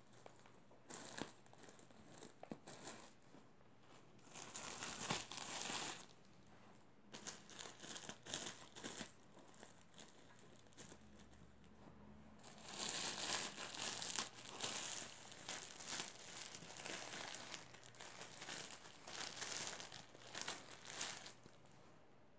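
Thin plastic bread bags crinkling and rustling as a cat noses and paws at the bagged buns. The sound comes in irregular spells with short pauses, and the longest run is in the second half.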